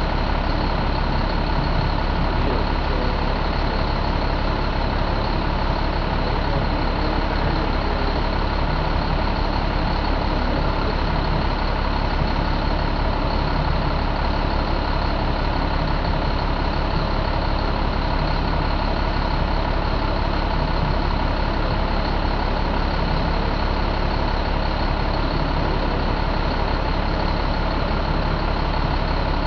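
Caterpillar C7 inline-six diesel engine running steadily in the truck, with an even, unchanging engine note.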